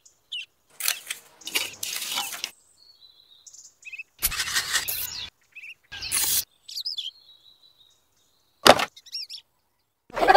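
Tiny trowel scraping and smoothing wet cement over miniature bricks in several short strokes, with birds chirping in the background. One sharp click near the end.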